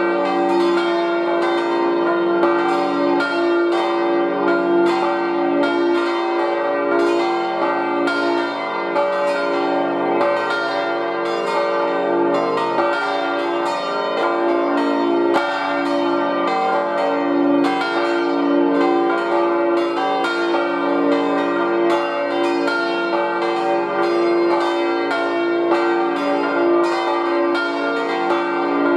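Full peal of five swinging church bells tuned to d', f', g', b♭' and c'', four cast by Rüetschi of Aarau in 1956 and one by Jakob Rüetschi in 1834. The bells ring together, their strikes overlapping without pause, calling to the service.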